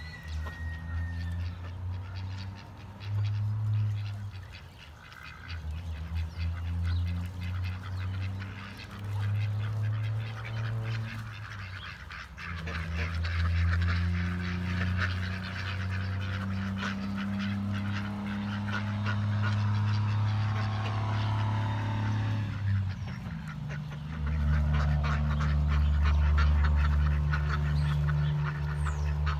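Pekin and other domestic ducks quacking and dabbling their bills in shallow water tubs, with a low steady rumble that comes and goes every few seconds.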